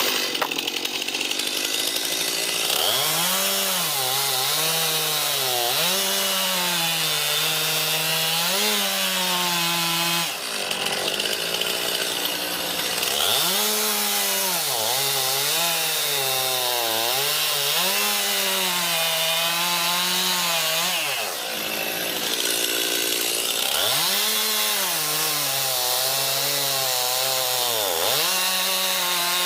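Chainsaw cutting wood, its motor pitch dipping and recovering again and again as the chain bites and frees, with brief breaks in the sound about ten seconds in and again about twenty-one seconds in.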